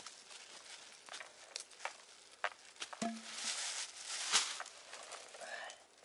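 Footsteps on forest litter, then a plastic bag crinkling as it is handled, loudest about four seconds in.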